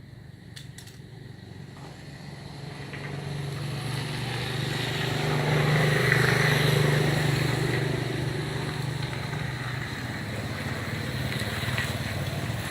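A motor vehicle's engine, growing louder over several seconds, loudest about six seconds in, then easing off and running on steadily.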